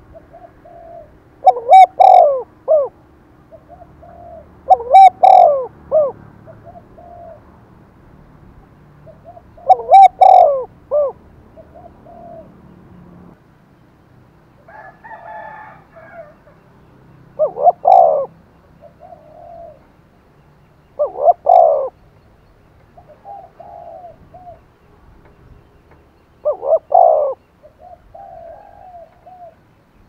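Spotted dove cooing repeatedly: about six loud coo phrases spaced a few seconds apart, with fainter coos between them. It is a caged decoy bird calling hard to provoke wild spotted doves into answering.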